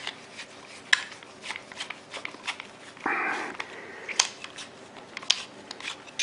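Small metal airsoft rifle parts being handled and worked by hand: scattered light clicks and ticks, with one short scraping rasp about three seconds in.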